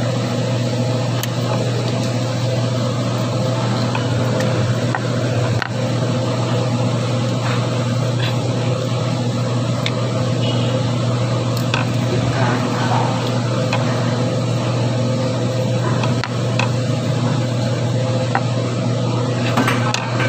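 A steady low mechanical hum with hiss over it, and a few light metallic clicks and taps from a ratchet and socket being worked on a belt pulley's bolt.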